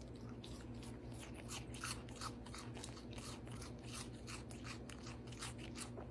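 Faint, irregular crunching clicks, several a second, like something chewing dry food, over a low steady hum.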